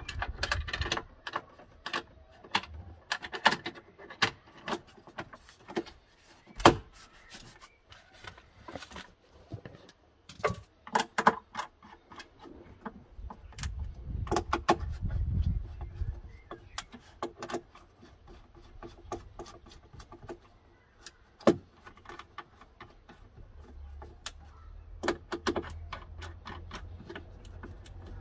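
Scattered clicks and knocks of hands and tools in a van's battery compartment: a plastic terminal cover being refitted and an insulated screwdriver working on the busbar terminals, with a couple of sharper knocks.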